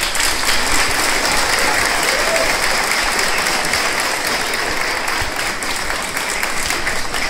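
Large crowd applauding, a steady even sound of many hands clapping.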